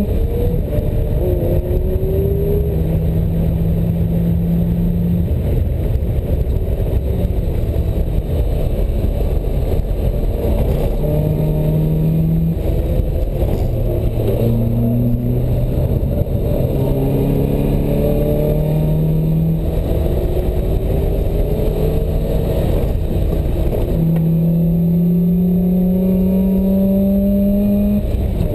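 Open-top sports car's engine driven hard, heard from inside the open cockpit: its note climbs as it revs up and drops back at each gear change, several times over. Heavy wind and road rumble run underneath.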